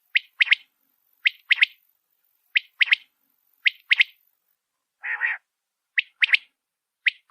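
Quail calling, presented as a female's call: a crisp three-note phrase, a short note and then two quick notes close together, repeated about six times at a steady pace of roughly one phrase a second. About five seconds in, one longer, rougher rasping note breaks the series.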